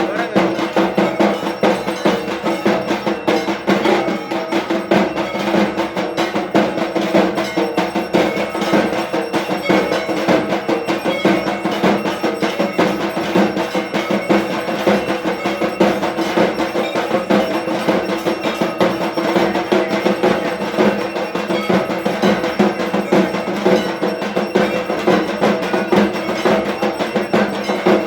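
Dhak drums beaten fast with clanging, ringing bells, in a loud unbroken rhythm: the percussion of a Durga Puja evening aarti.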